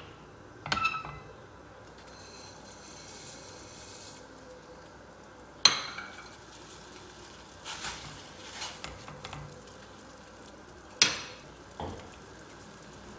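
Stainless steel pan and utensils clinking: three sharp metallic knocks with brief ringing, about a second in, near the middle and near the end, with softer knocks and rustles in between.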